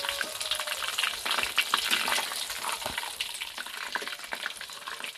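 Tofu frying in hot cooking oil, a steady sizzle full of small crackles that dies down somewhat near the end.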